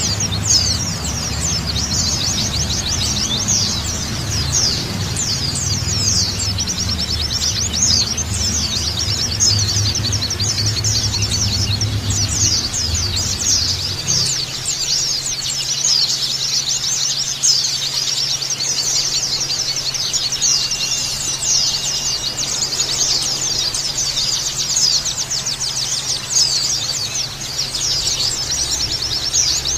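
Many white-eyes (pleci) chirping and twittering densely and without pause, in rapid high-pitched notes. A low rumble lies beneath them for about the first half, then drops to a faint steady hum.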